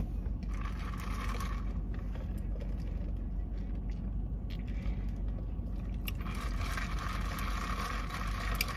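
Steady low rumble of a car cabin, with a light hiss coming and going over it, strongest briefly near the start and again from about six seconds in.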